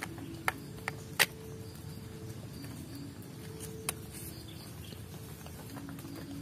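Split bamboo tube knocking and scraping against the rim of a small clay pot as coconut oil is drained from it into the pot: a handful of sharp clicks in the first second and a half, the loudest just over a second in, and one more near four seconds.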